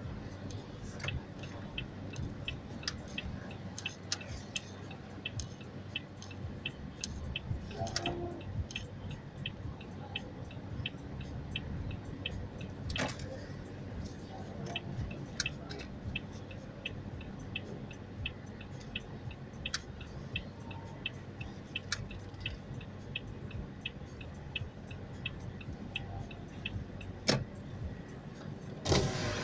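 Mitsubishi Lancer Evolution driving slowly, a low engine and road rumble heard from inside the car. Over it runs an even, light ticking at about two ticks a second, with a few sharper clicks.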